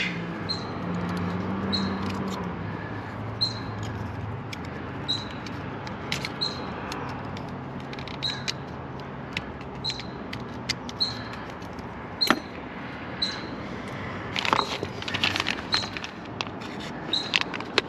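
A songbird repeating a short, high chirp about once a second. Small metal parts and a screwdriver click now and then, and a plastic parts bag crinkles near the end.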